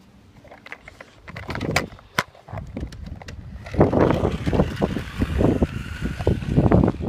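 Small toy RC car driving across asphalt: its electric motor whines faintly from about halfway through, over the rumble and rattle of its wheels on the rough surface. Scattered clicks and knocks run throughout.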